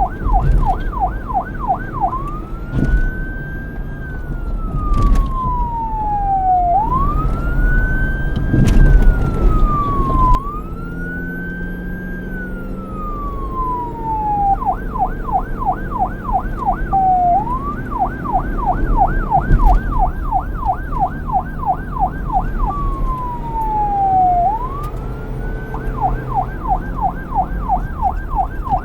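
Police car siren switching back and forth between a fast yelp and a slow rise-and-fall wail, over a low rumble. A few sharp knocks stand out partway through.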